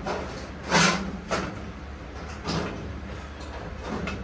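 Short scraping and rattling bursts from loose sheet metal being handled at the base of a furnace, the loudest about a second in, over a steady low hum.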